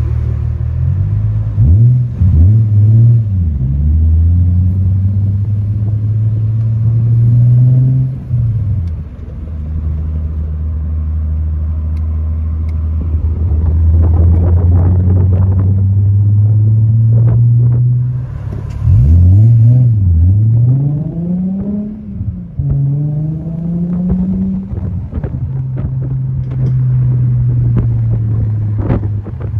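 Nissan Z roadster's V6 engine heard from the open cabin with the roof down. It pulls away with the revs rising and dropping back at each gear change, around two seconds in and again just past the middle, and otherwise runs at a steady cruise.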